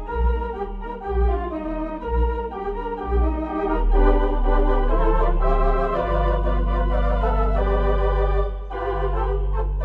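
Organ music playing a melody over the bass. For the first few seconds the bass pulses about once a second, then it settles into long held bass notes from about four seconds in.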